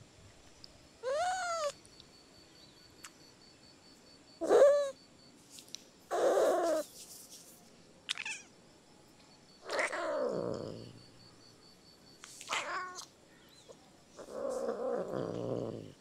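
Domestic cat calling in a series of about seven separate meows. Some are short with a rise-and-fall in pitch; longer, rougher calls come with a falling one about ten seconds in and a drawn-out one near the end.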